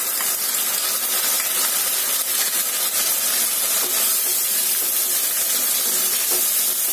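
Wet onion paste sizzling and hissing steadily in hot mustard oil with browned sliced onions in a non-stick wok as it is stirred in with a wooden spoon.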